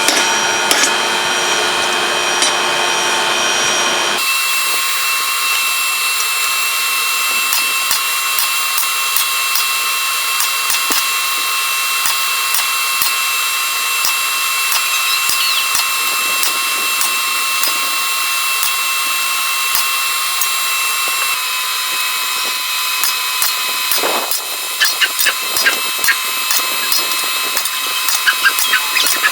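Ringing hammer blows on hot steel for the first four seconds or so. Then a power grinder runs with a steady high-pitched whine while grinding a steel hammer head, with sharper scratchy bursts near the end.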